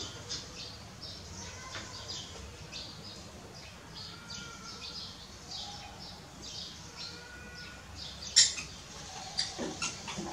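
Repeated short, high-pitched animal chirps and squeaks, several a second, with a few brief whistled glides among them. A sharp knock about eight seconds in.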